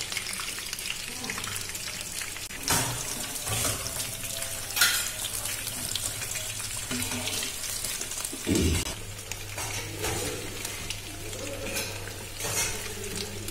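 Batter-coated prawn-head pakoras deep-frying in hot oil in a non-stick wok: a steady sizzling hiss of bubbling oil, with a few short clicks and knocks as a spatula touches the pan.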